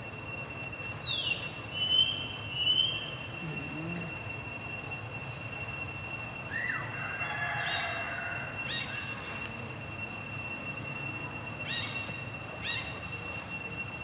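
Short high-pitched animal calls: a falling chirp, two sharp chirps around two to three seconds in, a longer call in the middle and a few brief falling calls near the end, over a steady high-pitched whine.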